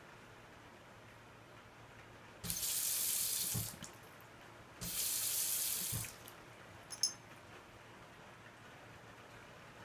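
Water from a small hand-basin tap runs into the bowl in two short spells of about a second each, separated by a brief pause. Each spell starts and stops abruptly with a low thud. A short click follows near the end.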